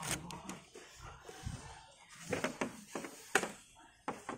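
Handling noise from flat ribbon cables and their connectors on a TV's T-con board: a few faint, scattered clicks and taps, the sharpest a little past three seconds in.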